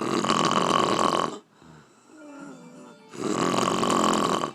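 A woman snoring heavily after a day of drinking: two long, rough, fluttering snores about three seconds apart, each lasting over a second.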